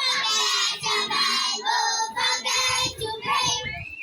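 High-pitched singing voice in short phrases, each lasting well under a second, over a faint steady low note.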